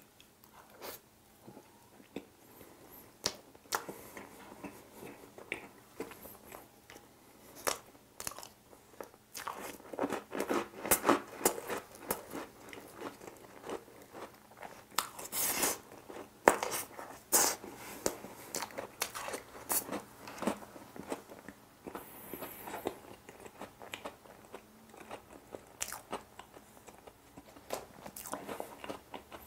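Close-miked chewing and biting of Oreo ice box cake, with crunching of the cookie layers and many irregular clicky mouth sounds. The chewing is busiest about a third and halfway in.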